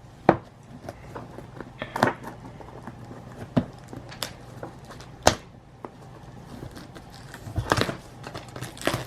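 Packaging of a boxed air compressor being handled and opened: scattered sharp knocks, taps and scrapes with short rustles, several seconds apart or in quick pairs, a cluster near the end.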